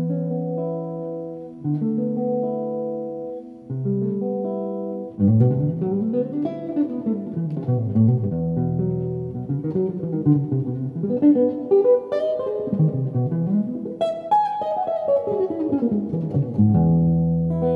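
Solo archtop electric guitar played through an amplifier: slow, held chords at first, then, about five seconds in, fast runs of notes sweeping up and down the neck, settling on a held chord near the end.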